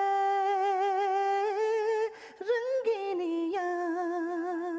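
Male singer singing unaccompanied in a high, female-style voice: a long held note with vibrato, a short break about two seconds in, then another held, wavering note.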